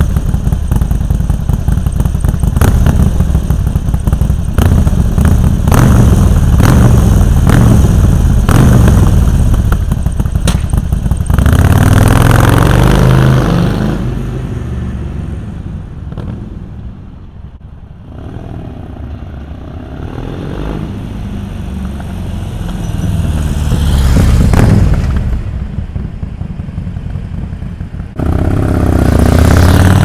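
Harley-Davidson Sportster Forty-Eight's air-cooled V-twin with Screaming Eagle mufflers, idling with repeated sharp throttle blips, then pulling away and fading into the distance. It swells again as it rides back, and comes by loud and close near the end.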